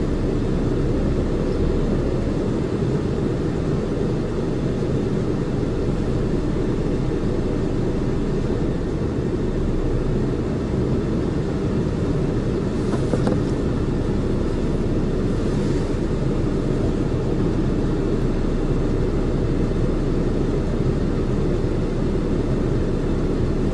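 Steady road and engine noise of a car driving, with the energy mostly in the low rumble. It holds even throughout and cuts off suddenly at the end.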